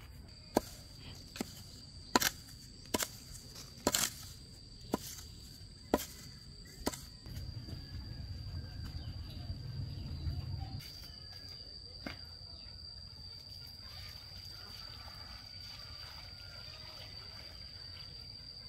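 A steady high insect drone runs throughout. Over it come sharp taps about once a second for the first seven seconds, from a trowel working a dry sand-and-cement mix. A low rumble follows for a few seconds.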